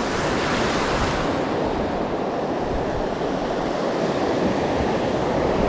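Gulf surf washing in around the shallows and breaking on the beach: a steady rushing hiss of waves that does not let up.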